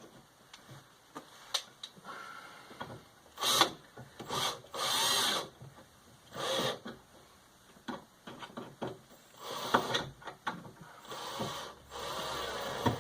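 Screws being driven into a wooden door to fix the small magnet plate of a magnetic door latch, heard as several short spurts of screwdriving and rubbing with short pauses between them.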